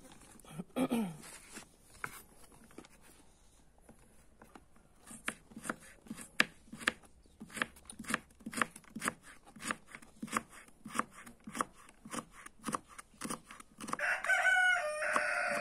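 Kitchen knife chopping carrot rounds into strips on a wooden cutting board, with even strokes about two to three a second. Near the end a rooster crows loudly.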